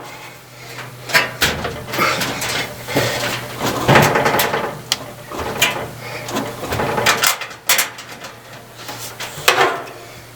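Irregular clicks, scrapes and knocks of a tool and a screw against a clothes dryer's sheet-metal cabinet as a screw is worked into place.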